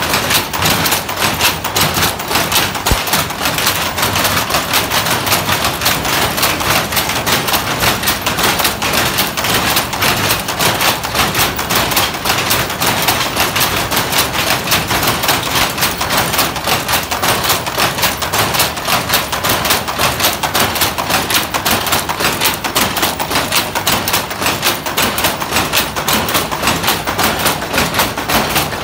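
Weaving looms clattering in a fast, unbroken rhythm: the batten and shuttle knocking with every pick of the weft.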